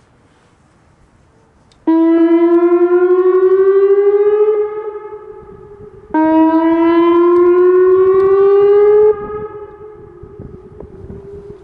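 Whelen 2810 electronic outdoor warning siren sounding its short whoop tone: two rising whoops, each sweeping slowly upward for about three seconds before cutting off sharply. An echo trails away after each one.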